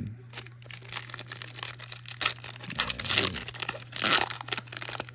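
Plastic-foil wrapper of a trading-card pack crinkling and tearing as it is opened by hand, in irregular crackles with the loudest burst about four seconds in.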